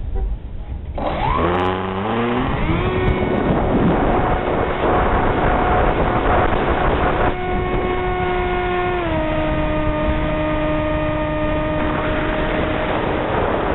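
RC model airplane's motor, heard from the onboard camera, spooling up about a second in with a steeply rising whine for takeoff, then running at a steady pitch through the climb, with wind rushing over the microphone. Around nine seconds in its pitch steps down slightly.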